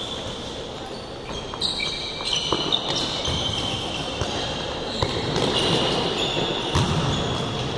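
Sneakers squeaking on the hard floor of an indoor futsal court during play, in short high squeals, with a few sharp thuds of the ball being kicked.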